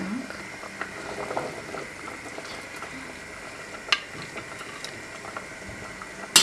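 Pot of salted water bubbling on a gas stove, with light clinks of a metal slotted skimmer against the pot and plate as boiled herring heads and tails are lifted out; one sharper clink about four seconds in and another at the end.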